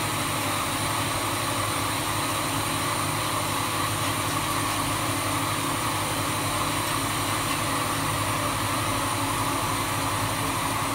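Jonsen Sander SD300-WJS+3D wet deburring machine running: a steady mechanical hum with several constant tones.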